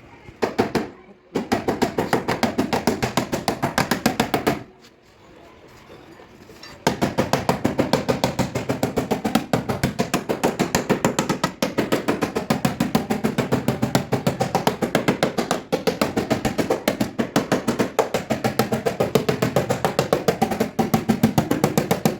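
Rapid hammer taps on a car body panel, about six or seven a second, in a short run, a brief pause, then a long unbroken run.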